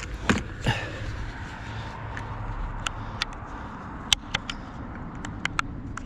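Scattered light clicks and knocks of hard objects being handled and shifted in a curbside junk pile, over a steady low rumble.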